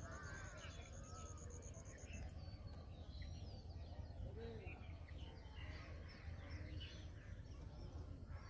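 Birds calling faintly: a crow's caws right at the start, then scattered short chirps and calls, over a steady low rumble. A fast, high-pitched pulsing trill runs until about two seconds in.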